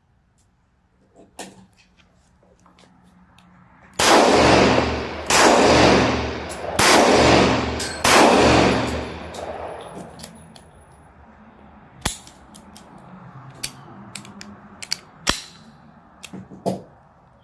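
Tokarev pistol firing four shots about a second and a half apart, each trailing off in a long echo. Fainter sharp cracks and clicks follow in the later part.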